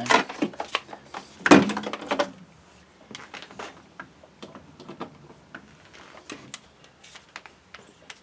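Two loud knocks in the first two seconds, then light clicking and rattling: steel spade bits and their hard-shell plastic carrying case being handled.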